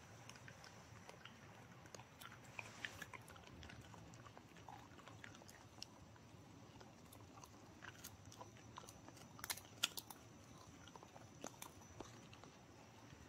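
Puppies chewing dried beef lung jerky: faint, scattered crunches and clicks of teeth on the dry treat, with a louder cluster about ten seconds in.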